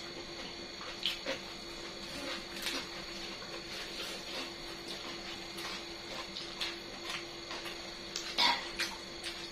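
Close-miked eating sounds: scattered clicks and smacks of chewing, with a brief louder burst near the end, over a faint steady hum.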